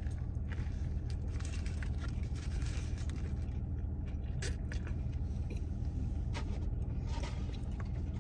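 Steady low rumble of a car idling, heard from inside the cabin, with faint scattered crunches and clicks of someone chewing a bite of a chicken sandwich.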